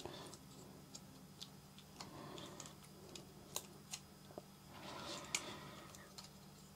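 Faint scattered clicks and soft plastic rubbing as a DJI Osmo Action camera is pushed by hand out of its tight-fitting plastic frame case.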